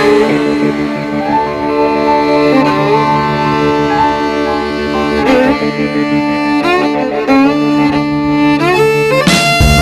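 Background music: sustained, sliding melodic lines in a bowed-string or lead-guitar voice over a steady low accompaniment.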